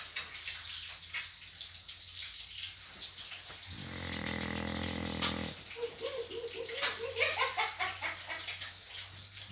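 A person snoring. One long buzzing snore comes on the in-breath about four seconds in, followed by a fluttering out-breath made of a quick run of soft pulses.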